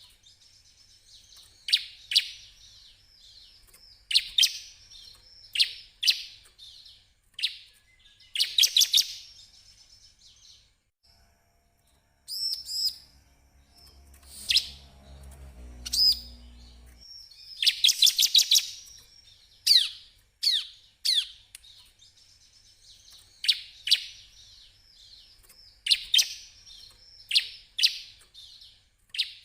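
Bar-winged prinia (ciblek) singing: sharp, quickly falling chirps in short clusters, with rapid rattling strings of notes near a third of the way in and again past the middle. A low rumble sounds briefly about halfway through.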